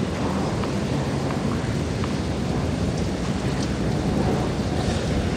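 Steady low rumble of a stadium crowd, with a few faint taps of a tennis ball being bounced before a serve.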